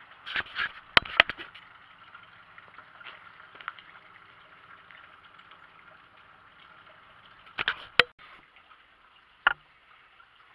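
A few sharp clicks and knocks over a faint steady background hiss: a cluster about a second in, two more near eight seconds, and a single one near the end.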